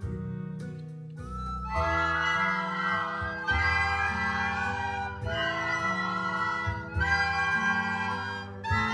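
A group of children playing descant recorders together, a many-voiced high melody coming in about two seconds in over a piano-and-guitar backing accompaniment.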